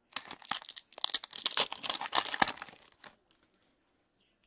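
A foil trading-card pack being torn open, the wrapper crinkling and crackling densely for about three seconds before stopping.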